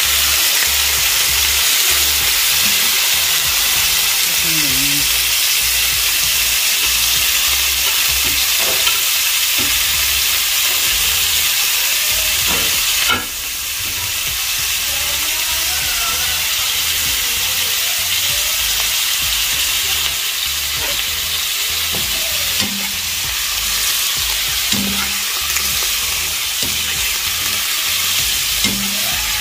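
Freshly added raw diced pork sizzling in hot oil in a non-stick wok, stirred with a spoon. The sizzle drops suddenly about halfway through and runs on a little quieter.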